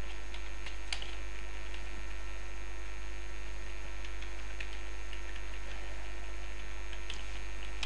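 Steady low electrical mains hum on the recording, with a few faint keyboard clicks as HTML tags are typed.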